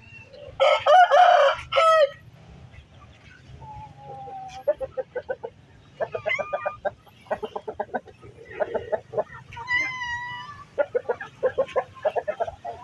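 Shamo rooster crowing once, loudly, from about half a second in, then Shamo chickens clucking in quick runs of short calls through the rest, with another brief pitched call near the end.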